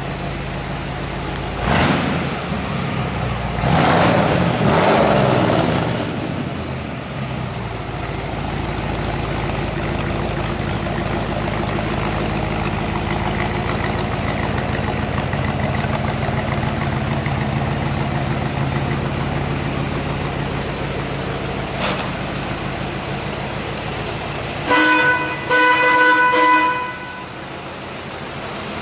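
1962 Chevrolet Impala Super Sport's engine idling, revved briefly about two seconds in and again around four to six seconds in, then idling steadily. Near the end a car horn sounds twice.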